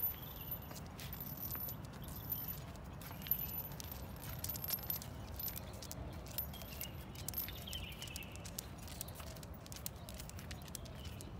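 Scattered light clicks and metallic jingles from a German shepherd walking on a leash over paving stones, over a low steady rumble.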